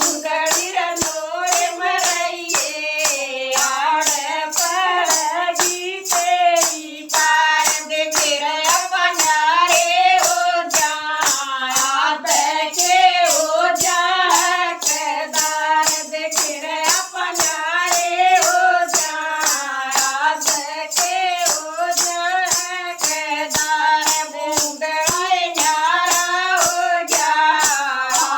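A Haryanvi devotional folk song (bhajan) sung in a high voice with a wavering melody, accompanied by jingling hand percussion that keeps a steady beat of about two strokes a second.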